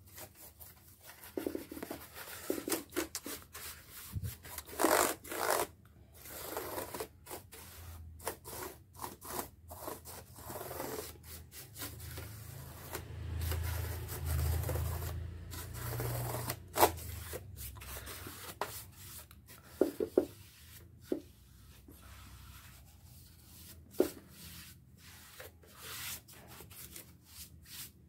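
Hands handling objects on a work surface: irregular rubbing, scraping and sharp clicks, with a few dull low bumps midway.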